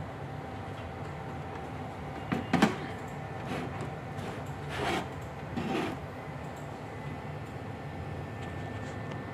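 Handling noise from plugging a USB cable into the back of a DVR: a few sharp clicks and knocks about two and a half seconds in, then softer rustling swishes of cables and equipment being moved. A steady low electrical hum with a faint thin whine runs underneath.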